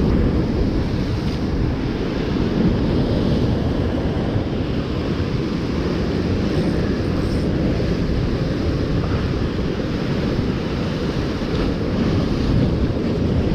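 Wind buffeting the microphone over the steady wash of surf breaking against rocks.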